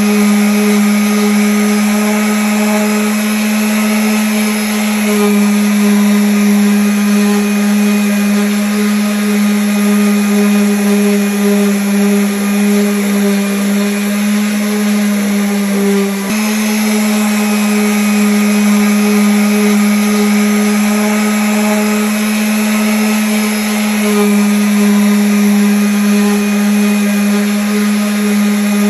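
Electric sander running on wood with a steady, loud hum and the rasp of the pad on the surface. Its pitch dips briefly about halfway through, then comes straight back up.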